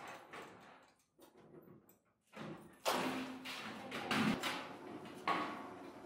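Thin sheet-steel washing-machine drum shell rattling, scraping and knocking as it is turned through a hand-cranked rolling machine. After a brief quiet spell, irregular metallic clatter with ringing and a couple of sharp knocks.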